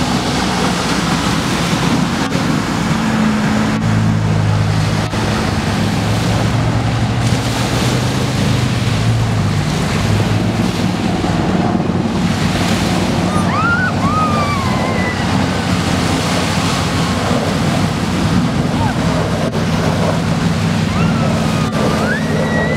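Jet ski engine running steadily as it planes, its hum shifting a little in pitch, over the loud rush of churning water and spray, with wind on the microphone.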